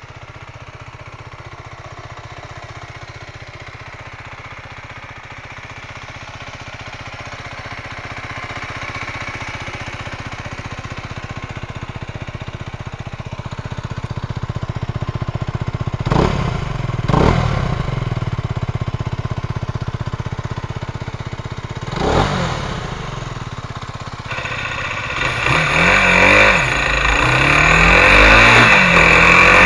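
Mondial SMX enduro motorcycle's single-cylinder engine idling steadily, revved briefly three times, twice in quick succession just past halfway and once more a few seconds later. Near the end it pulls away, the engine note rising and falling as it accelerates through the gears and grows louder.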